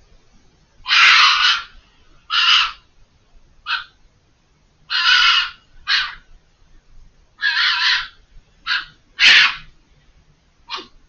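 Fox screaming: a series of about nine hoarse, rasping screams, longer ones of over half a second mixed with short sharp ones, spaced about a second apart.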